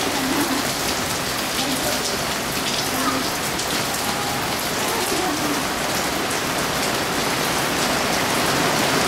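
Steady downpour of thunderstorm rain.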